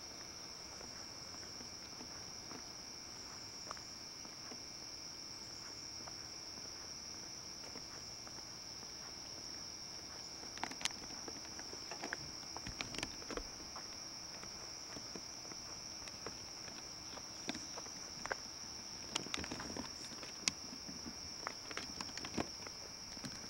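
Steady high-pitched insect chorus in summer woods, with scattered footsteps and camcorder handling bumps from about ten seconds in as the camera is carried along the path.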